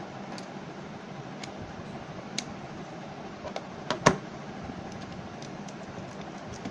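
Light clicks and taps of test probes, a 9-volt battery and a digital multimeter being handled on a wooden table, the loudest a sharp knock about four seconds in, over a steady background hum.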